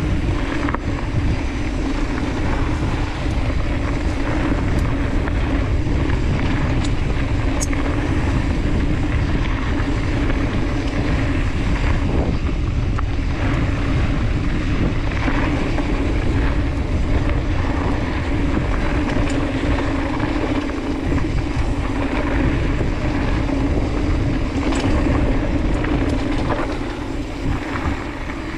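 Steady rush of wind on the handlebar-mounted camera's microphone, mixed with the rumble and hum of a KHS 7500 enduro mountain bike's knobby tyres rolling fast down a dirt singletrack, with a few light clicks and rattles.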